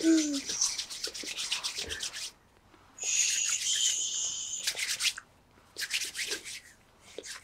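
Hands rubbing and brushing together in a quick run of scratchy, swishing strokes, in two spells. Between them, about three seconds in, comes a hiss lasting a second and a half, like a whispered 'shh'.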